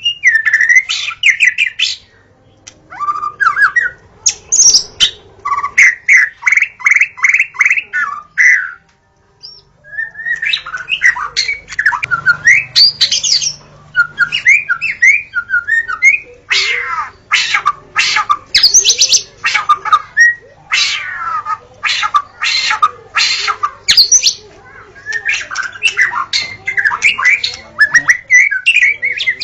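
White-rumped shama (murai batu) singing a varied song of gliding whistles, fast runs of repeated notes and harsh clicky notes, in phrases with short pauses about 2 and 9 seconds in.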